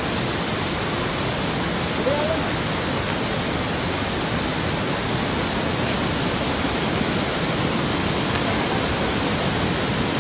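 Ravana Falls in flood, a heavy torrent of muddy water crashing down the rock steps: a steady, dense rush of water at every pitch.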